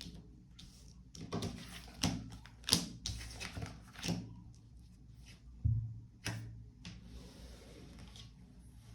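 Tarot cards being handled and laid out on a table: about ten sharp, irregular taps and snaps of card on card and card on tabletop.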